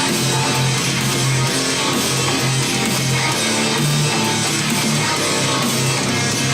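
Guitar music with strummed guitar and a bass line, played back through S90E loudspeakers fitted with Alphard midrange and tweeter drivers.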